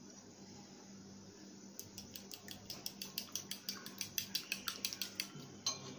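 Metal spoon beating raw eggs in a ceramic bowl, clinking against the bowl in a quick, even rhythm of about seven strokes a second. The beating starts about two seconds in and stops shortly before the end.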